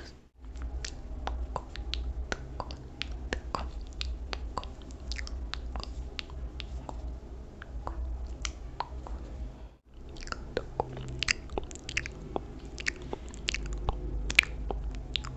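Close-miked ASMR mouth sounds: a rapid, irregular run of wet clicks and smacks, over a low rubbing from a makeup brush worked right at the microphone. The sound breaks off briefly twice, just after the start and about ten seconds in.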